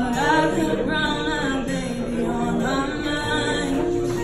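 A woman singing live into a microphone, in short phrases with held, wavering notes, over steady lower accompaniment notes.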